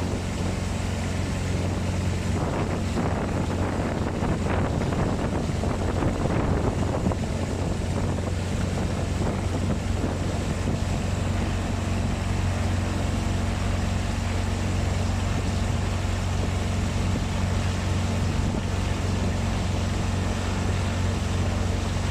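Outrigger boat's engine running steadily under way, a constant low drone. Gusty wind on the microphone adds a rough rushing over it for the first several seconds.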